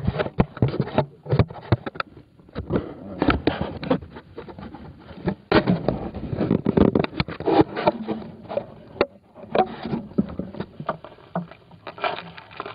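Handling noise from an iPod's built-in microphone: fingers rubbing, scraping and knocking on the device while it is fitted onto a model airplane, an irregular run of clicks, bumps and scrapes.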